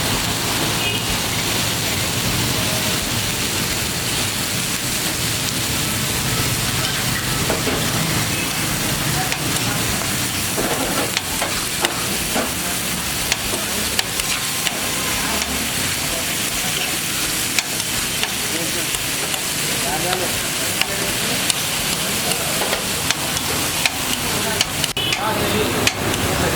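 Food sizzling as it fries in a hot pan, while a metal spatula stirs and tosses it. Sharp clinks of the spatula on the pan come often through the second half.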